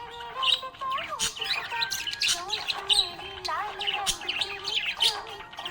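Budgerigar chattering and warbling, a rapid, unbroken jumble of short chirps, squawks, clicks and wavering whistled notes.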